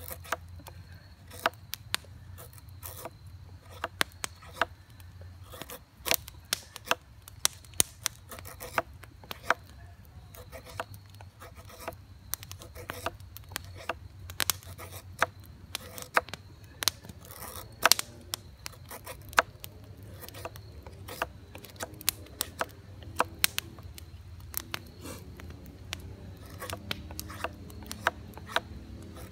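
LT Wright Bushcrafter HC's carbon-steel knife blade carving down a dry wooden stick for a bow drill spindle: short, sharp shaving cuts at an irregular few per second.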